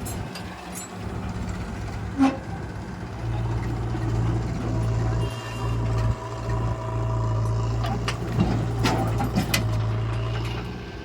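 Heavy diesel engine of a working earth-moving or farm machine, running steadily and growing louder about three seconds in. Several sharp metallic knocks and clanks come through it, with a faint steady whine in the middle and near the end.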